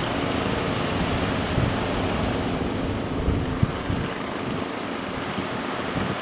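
Strong wind buffeting the microphone over breaking surf, with a boat engine's drone under it that fades out about two-thirds of the way through.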